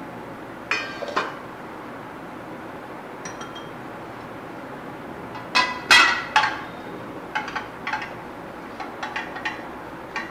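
Glass mixing bowl clinking and knocking against a steel plate as dough is worked by hand in it: a pair of clinks about a second in, a louder cluster about six seconds in, and lighter clinks scattered after.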